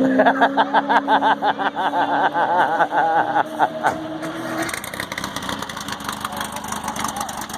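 Race car engine running at a steady pitch with a fast pulsing burble. It drops away about four and a half seconds in, leaving a steady rushing noise.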